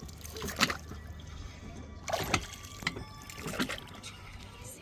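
Oars or paddles of a rowed lake boat dipping and pulling through the water, a splashing stroke about every second, with water trickling from the blades between strokes.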